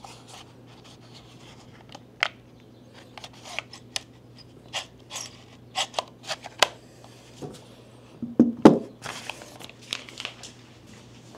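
Unboxing handling noises: packaging crinkling and tearing with scattered sharp clicks, and a louder knock of something set down or handled about eight and a half seconds in. A faint steady low hum runs underneath until about seven and a half seconds in.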